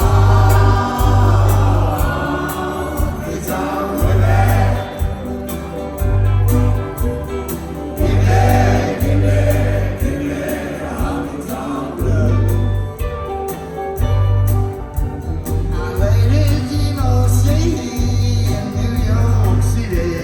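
Live band playing a country rock song, with several voices singing over guitar and loud, heavy bass notes.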